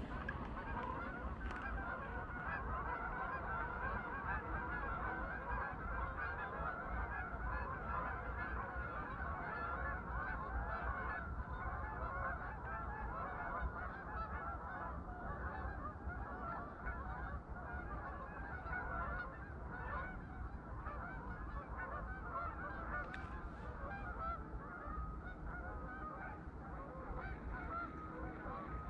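A large flock of geese honking, many overlapping calls at once, as the flock takes flight; the chorus thins somewhat in the last several seconds.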